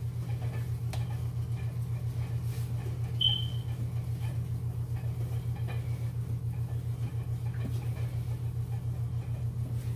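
A steady low machine hum with a fast, even pulse, like a motor or fan running. About three seconds in, a short high chirp.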